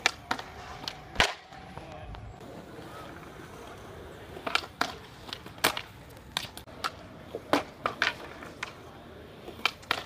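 Skateboard on concrete: sharp clacks of the board popping and slapping down, a loud one about a second in and a quick run of them from about four and a half seconds on, over the steady rumble of wheels rolling.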